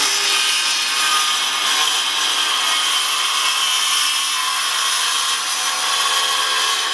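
Circular saw cutting through a reclaimed pallet board, running steadily under load as it is pushed along the cut.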